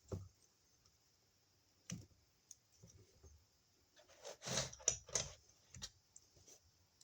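Scattered light clicks and scraping of hand tools and electrical wire being handled at a wall outlet box, with a cluster of louder scrapes and clicks about four to five seconds in.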